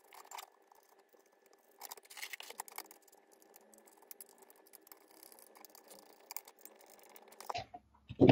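Faint clicks, rattles and scratches of small parts being handled and a screw being turned with a hand screwdriver into the RC buggy's chassis, busiest about two seconds in and again near the end, over a faint steady hum.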